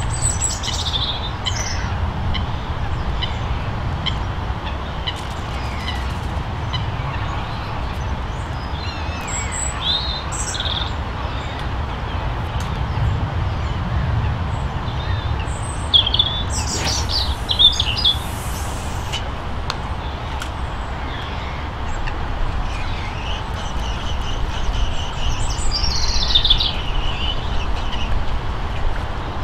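Small birds chirping and whistling on and off, with short bursts of calls that come in several bunches, over a steady low rumble.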